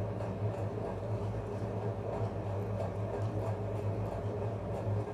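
Steady low background hum with a faint even hiss, and no speech.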